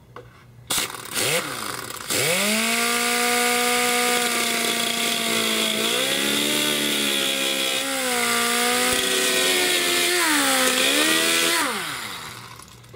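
Handheld rotary tool spinning a small slitting-saw disc, cutting marking notches into a steel M14 magazine. The motor whines up to speed about two seconds in, over the hiss of the cut, and its pitch dips a few times as the blade bites under load. It winds down near the end.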